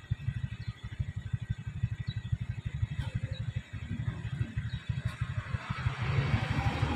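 A vehicle engine idling with a fast, low throb. Near the end a louder engine and road noise builds as the vehicle moves off.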